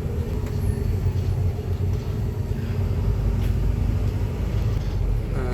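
Steady low rumble of a moving bus heard from inside the cabin: engine and road noise, with a faint steady hum over it.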